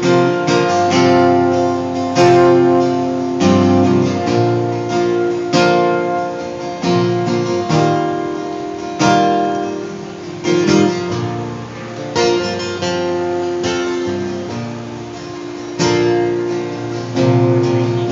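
Solo acoustic guitar being strummed, chords struck every second or so and left to ring.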